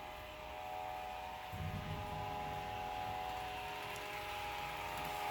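A model Amtrak diesel locomotive's sound decoder blowing a long multi-note horn chord, held steady. About a second and a half in, the locomotive's diesel engine sound comes in beneath it.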